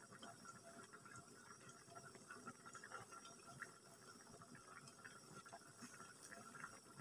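Near silence with faint, irregular ticking and crackling from crab in sauce simmering in a lidded wok.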